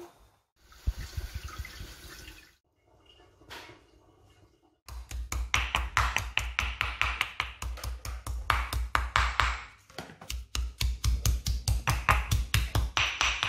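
Soft rustling and handling of leaves, then background music with a fast, steady thumping beat starts abruptly about five seconds in, breaks off briefly and resumes.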